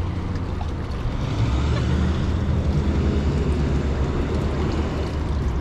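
Water running steadily in a wishing-well fountain, with a low rumble underneath.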